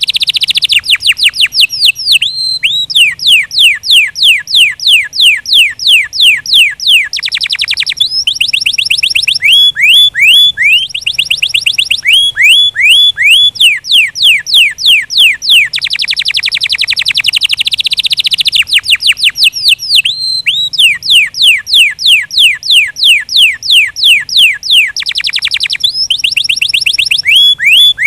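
Domestic canary singing a continuous song of trills. Each phrase is a run of quick, high, falling whistled notes repeated several times a second, switching every few seconds to a denser, faster rolling trill.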